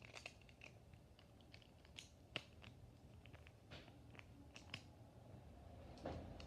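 Near silence broken by faint, irregular clicks and light taps from small plastic Beyblade parts being handled.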